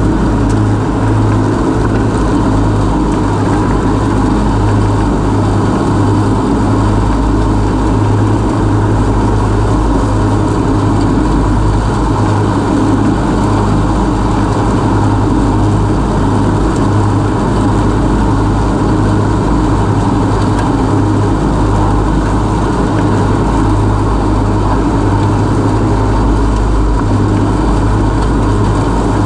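Husqvarna Rider R214 TC ride-on mower mowing: its 586 cc twin-cylinder Loncin engine running steadily under the three-blade front deck, mulching slightly tall grass.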